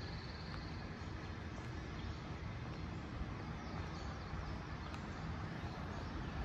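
Outdoor background ambience: a steady low rumble, with faint short bird chirps now and then.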